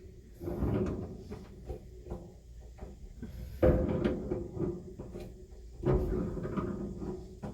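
Clunks and knocks of things being handled, with two loud thuds about two seconds apart, each followed by a short ringing hum.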